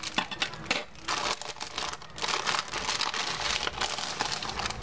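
Plastic courier pouch crinkling and rustling irregularly as it is handled and opened by hand.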